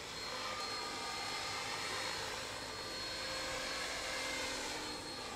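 Radio-controlled 3D aerobatic helicopter flying low, its rotor and motor making a steady high whine that shifts slightly in pitch as it manoeuvres.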